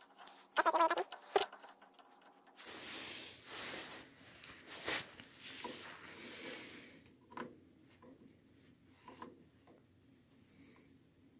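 Slip-joint pliers pushing a roller chain's master-link spring clip onto the link pins: soft steel scraping and rubbing for a few seconds, with one sharper click partway through and a few light clicks afterwards.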